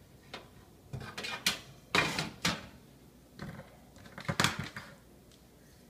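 Cookware and utensils being handled, with several short clattering knocks and scrapes, the loudest about two seconds in and again past four seconds.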